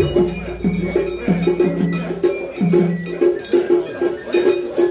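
Japanese festival music (matsuri-bayashi): quick, rhythmic strikes of drums and a small metal hand gong over a held pitched tone.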